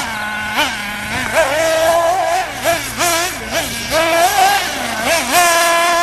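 Radio-controlled truck's motor revving hard and easing off over and over as the throttle is worked. Its pitch climbs, holds briefly, then drops, several times a second.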